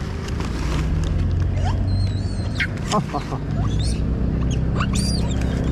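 Short, high, wavering animal calls, about two seconds in and again near the end, over a steady low rumble, with a few sharp clicks.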